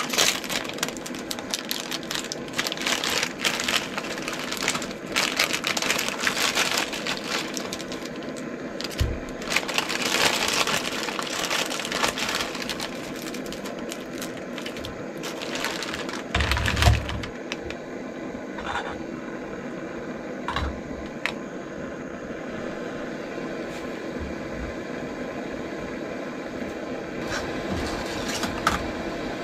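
A Sapporo Ichiban instant noodle block being snapped into quarters inside its plastic packet: crackling, crunching and crinkling of the wrapper. The cracking stops about halfway through, leaving the steady hiss of a gas canister stove, with a few handling clicks and a thump.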